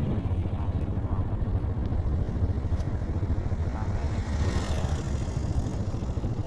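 A vehicle engine running steadily on the move, a low continuous rumble.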